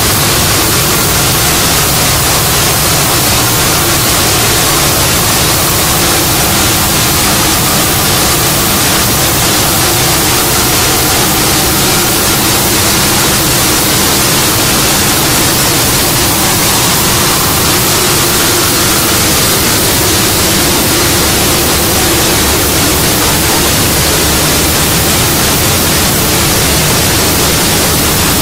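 CNC router spindle machining a wooden door panel: a loud, steady hiss with faint whining tones underneath.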